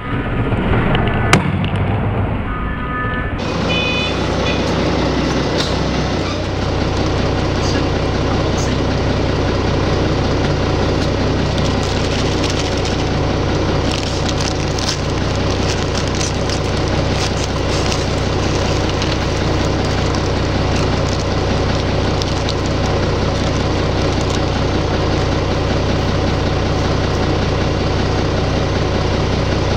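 Forklift engine idling steadily, with the crinkle of a plastic snack bag and small crackers rattling as they are poured and piled on concrete. A few short beeps sound in the first few seconds.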